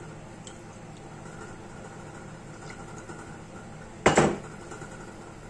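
Low steady kitchen background hum with a few faint ticks, and one sharp knock about four seconds in as a hard kitchen item is put down on the counter.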